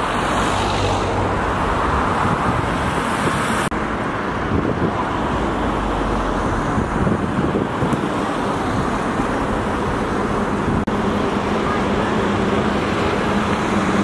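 Road traffic noise: a steady rush of passing cars' engines and tyres on a busy street.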